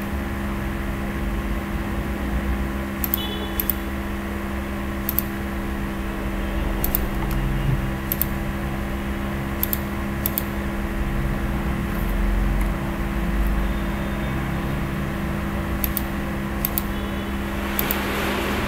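Steady machine hum, such as a computer fan or air conditioner, with a low fixed tone. Over it come about ten sharp computer-mouse clicks, some in quick pairs.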